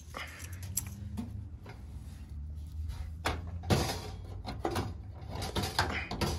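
Metal clicks and clunks of the MasterBuilt propane smoker's door latch and door being worked by hand, several knocks a few seconds in and more towards the end, over a low steady rumble.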